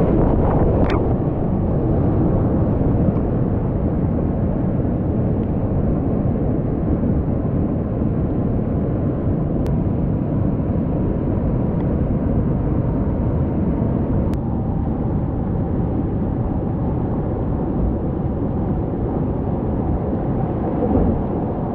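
Whitewater rapids rushing around a kayak, heard from the boat itself: a steady, dull roar of churning water with little treble.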